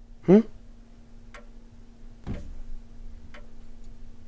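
Clock ticking steadily once a second over a faint steady hum. A brief vocal sound comes just after the start, and a dull low thump a little after two seconds.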